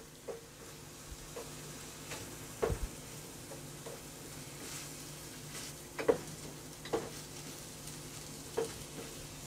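Ground beef and diced potatoes sizzling faintly in a frying pan as a wooden spatula stirs them, with a few knocks and scrapes of the spatula against the pan.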